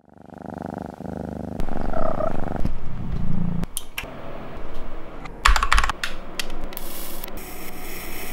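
Taps and clicks like computer keyboard typing, then a rushing hiss near the end as a long-nosed utility lighter is lit.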